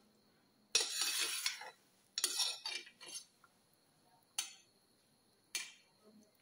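Steel spoon stirring thick soup in a metal pot, scraping against the pot in two longer strokes in the first few seconds, then two short knocks.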